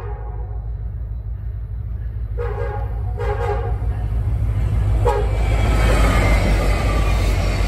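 Nathan K5LLA five-chime air horn on a Norfolk Southern locomotive sounding two half-second blasts about two and a half and three seconds in, then a brief toot about five seconds in, over the low rumble of diesel locomotives. The engine and wheel noise then swells as the lead units pass close by.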